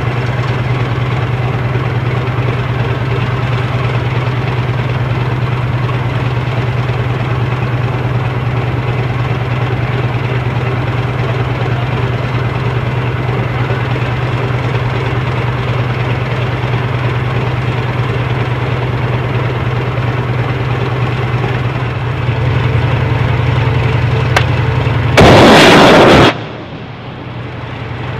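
Tracked military vehicle's engine running steadily with a low hum. Near the end a very loud blast lasting about a second cuts through it.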